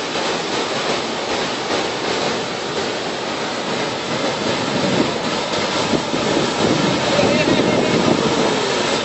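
Flash flood surging down a wadi: a wall of muddy brown floodwater rushing past close by, a steady, loud rush of water.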